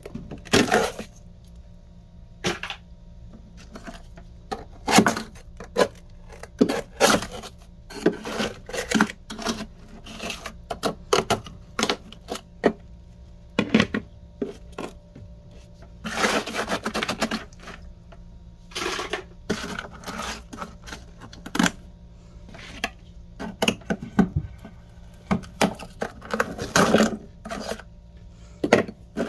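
A metal kitchen knife chipping and scraping thick frost off the inside of a freezer compartment: irregular sharp crunches, cracks and taps, with a couple of longer scraping runs past the middle, over a faint steady hum.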